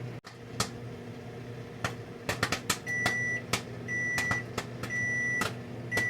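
Microwave oven running with a steady hum while popcorn kernels pop now and then in a paper bag. About three seconds in, it gives four high beeps about a second apart: the end of the cooking time.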